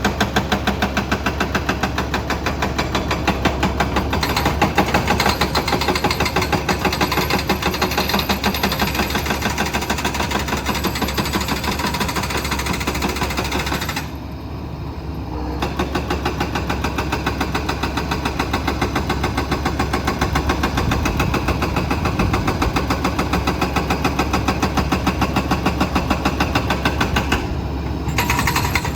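Excavator diesel engine running with a fast, even knocking rhythm. It drops briefly about halfway through.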